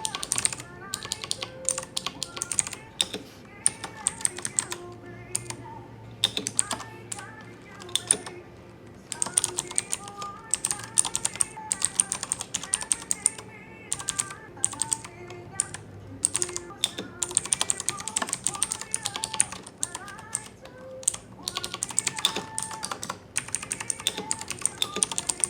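Typing on a Razeak K1 mechanical keyboard with blue switches, the clicky kind: quick runs of sharp key clicks broken by short pauses.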